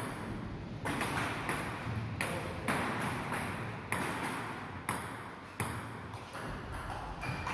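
Table tennis ball clicking against bats and the table: a string of sharp clicks, unevenly spaced, about every half second to a second.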